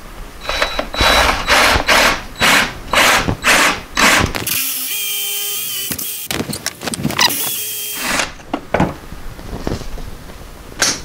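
Power drill boring out the head of a seized Allen bolt in a steel crankshaft pulley. The trigger is pulsed in short bursts, then held for steadier runs with a steady whine as the bit cuts. It stops about eight seconds in.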